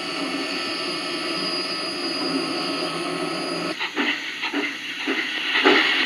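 HO scale model steam locomotive's sound system: a steady steam hiss, then about four seconds in the locomotive starts chuffing at roughly two chuffs a second as it gets under way.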